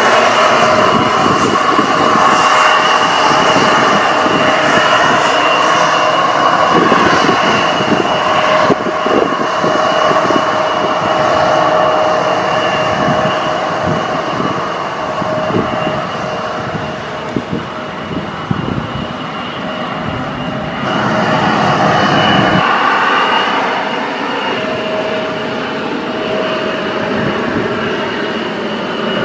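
Embraer E175 jet's turbofan engines running as the aircraft moves along the runway: a steady whine with a high held tone over a rushing noise. The sound dips slightly about a third of the way in and changes again about three quarters through.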